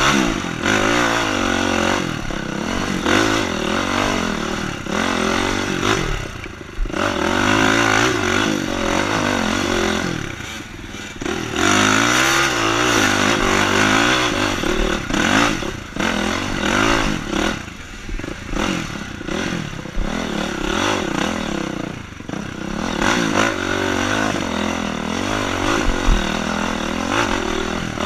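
Honda CRF four-stroke dirt bike engine revving up and down under load, with brief drops every few seconds as the throttle is rolled off and opened again.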